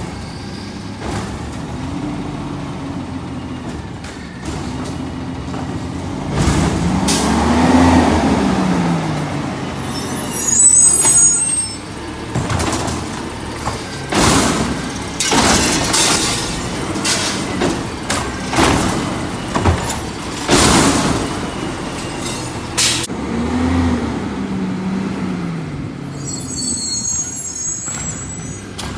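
Autocar CNG garbage truck with an automated side-loader arm working a cart: the engine revs up and back down as the hydraulics lift the arm, with a string of clanks and bangs as the cart is dumped and set back down. High-pitched squeals come twice, about ten seconds in and near the end.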